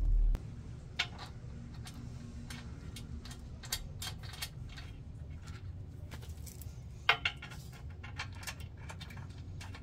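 Scattered small metallic clicks and clinks, one sharper clink about seven seconds in, as square nuts are fitted by hand through the vent holes of a steel winch bumper into the winch's mounting holes.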